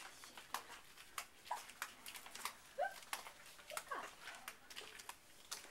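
Footsteps clicking on paved ground at a walking pace, about one step every half second or so. A few short, high-pitched squeaks come in between, the loudest about three seconds in.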